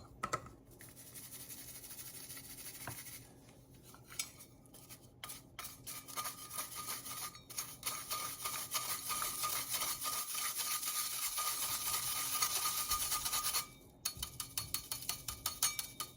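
Powdered sugar being sifted through a mesh sifter, a steady scraping rasp that builds up and stops suddenly about two seconds before the end. It is followed by a run of quick light taps.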